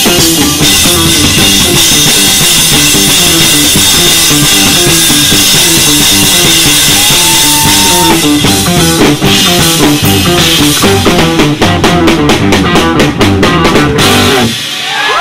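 Drum kit played hard in a live band, with guitar, on a fast instrumental piece. In the last few seconds the drums play a run of sharp, even hits, and then the band stops abruptly shortly before the end.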